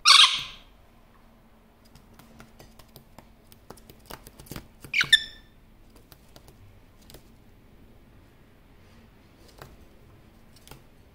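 Male superb parrot (Barraband's parakeet) giving a loud, harsh squawk at the start and a shorter call about five seconds in that ends in falling notes, with scattered soft clicks in between.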